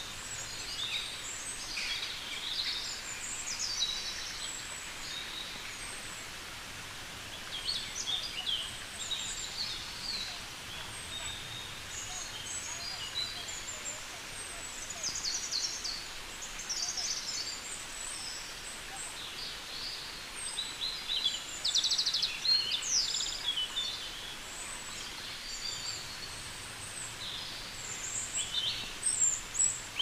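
Birds chirping and twittering, many short high calls overlapping throughout, busiest in the middle and near the end, over a steady rush of running water.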